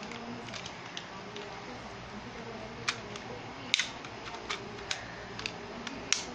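Scattered light clicks and taps of hard plastic, a Beyblade being fitted onto its launcher ready for a launch, the loudest a little under four seconds in.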